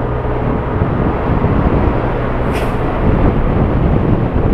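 Yamaha Aerox 155 scooter's single-cylinder engine running at road speed under steady wind and road noise. A short hiss comes about two and a half seconds in.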